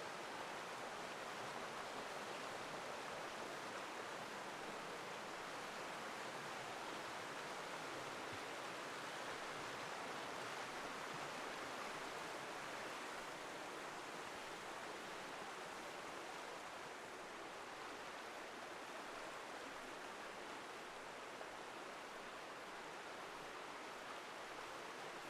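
Rushing water of a forest stream with small waterfalls: a steady, even rush with no breaks.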